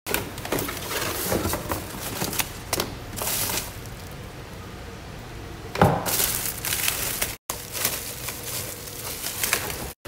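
Cardboard power-supply box being handled and opened, with scraping, crinkling and clicking of the box and its bubble-wrap packing. There is one louder knock or scrape about six seconds in.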